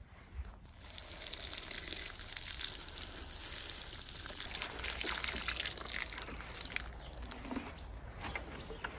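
Water showering from a watering can's rose onto leaves and soil, a steady hiss of falling water that starts about a second in and thins near the end.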